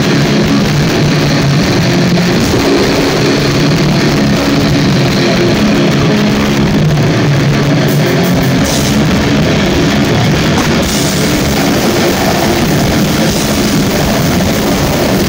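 Heavy metal band playing live at full volume: distorted electric guitar with drums, loud and unbroken.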